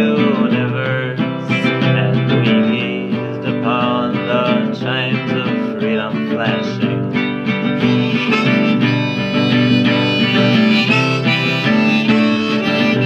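Acoustic guitar strummed steadily, with a voice singing over it for about the first seven seconds. From about eight seconds in, a harmonica comes in, holding long steady notes over the strumming.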